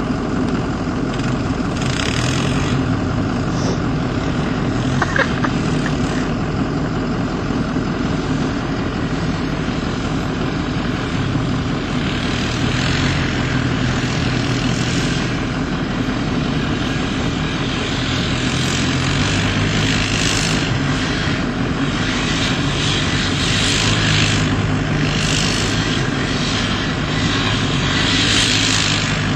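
ATV engine running steadily under load as it tows a car hood through snow, its drone shifting in pitch with the throttle.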